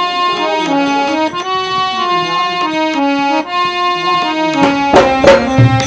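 Harmonium playing a bhajan melody in held, reedy notes that change every fraction of a second. About four and a half seconds in, a dholak starts beating along.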